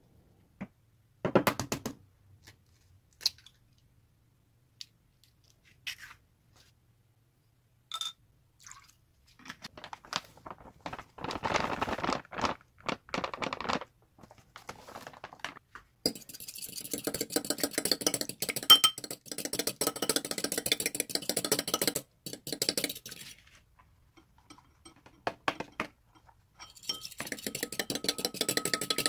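A fork beating egg in a bowl: a fast clinking of the tines against the bowl, in a long spell past the middle and again near the end. Before that come a few separate knocks and a longer stretch of rustling.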